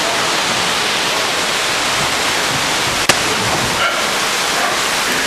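Steady rush of cascading water from a boat ride's waterfall, with a single sharp click about three seconds in.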